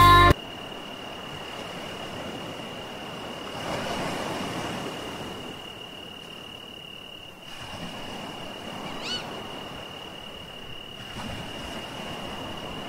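Sea waves washing ashore in slow surges, with a steady high-pitched whine throughout and one brief rising chirp about nine seconds in.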